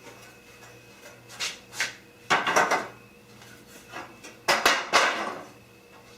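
Clattering and knocking of hard parts being handled and set down, in several short bursts, the loudest two near the middle and about three-quarters of the way through.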